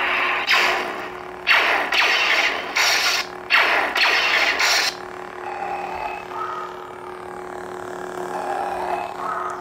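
Lightsaber sound board playing through its speaker: a steady electric hum broken by five sudden loud bursts, each fading quickly, over the first five seconds. After that the hum goes on alone, swelling gently as the chassis is moved.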